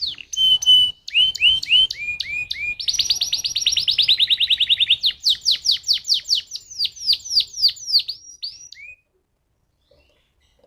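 Domestic canary singing. Runs of quick whistled notes each sweep downward in pitch, with a fast rattling trill in the middle. The song stops about nine seconds in.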